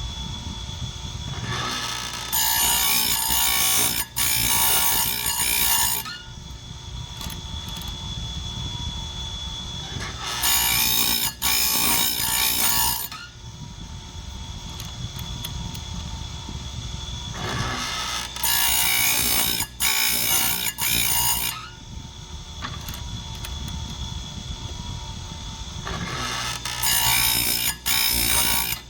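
Chainsaw-chain grinder running with a steady whine, its wheel grinding the cutter teeth in four harsh rasping passes of two to four seconds each, about every eight seconds.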